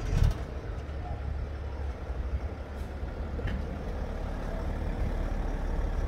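BMW 730d's three-litre straight-six diesel starting, with a short burst as it catches, then idling steadily with a low rumble.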